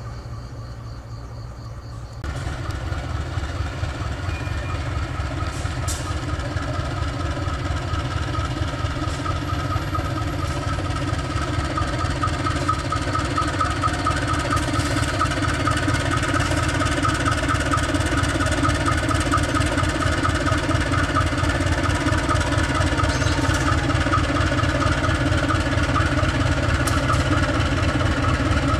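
Diesel-electric locomotive engine running with a low, steady, throbbing rumble, growing slowly louder after a jump about two seconds in.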